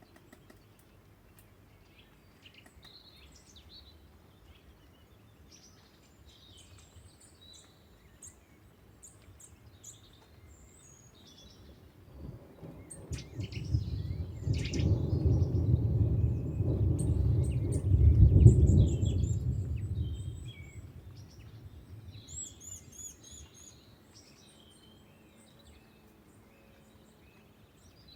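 A long roll of thunder that swells up about halfway through, peaks with a heavier crack-like surge and rumbles away a few seconds later. Birds chirp and call throughout.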